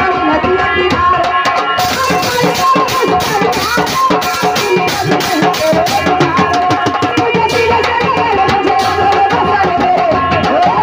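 Live Indian folk stage music: fast hand-drum rhythm under a held melodic instrument line. Crisper high strokes join about two seconds in and drop out near nine seconds.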